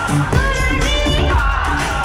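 Pop song with a singing voice over a steady beat and bass.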